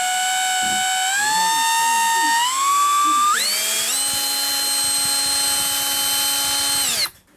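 FEIN ASB18 18V cordless hammer drill running free, its motor whine climbing in steps as the variable-speed trigger is squeezed further. It holds steady at top speed for about three seconds, then cuts off sharply near the end.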